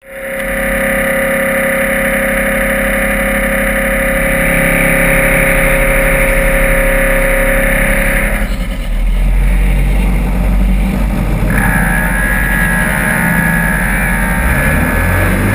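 Off-road buggy engine running steadily, picked up close by the onboard camera; its note changes about eight seconds in and again about twelve seconds in.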